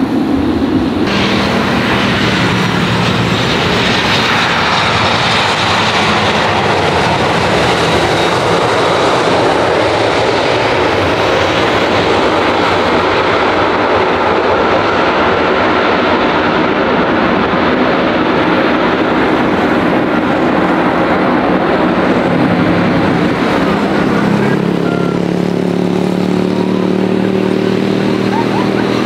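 Jet engines of a Boeing 737 airliner on the runway: a steady, loud roar, with a pitch that slowly falls over the first several seconds and a low steady drone coming in near the end.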